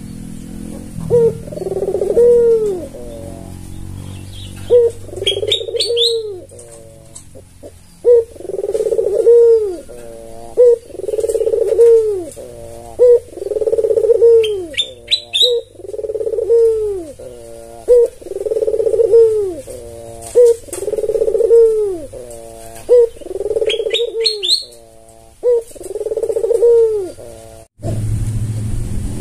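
White albino Barbary dove (ringneck dove, the Indonesian 'puter') cooing over and over, one rolling coo about every second and a half. Short high chirps break in three times.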